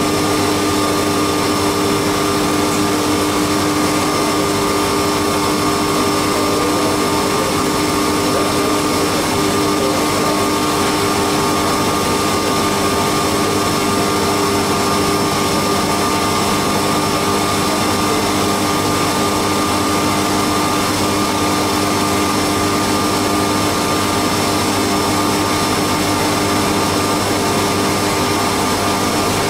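Haas CNC milling machine running a 4th-axis cut on a cam: a steady machine whine made of several constant tones over a hiss, unchanging throughout.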